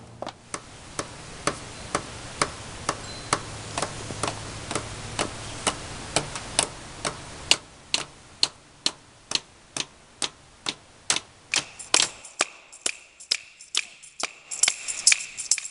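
Steady ticking, about two sharp ticks a second, getting faster and denser near the end. A faint low hum underneath drops away about halfway through.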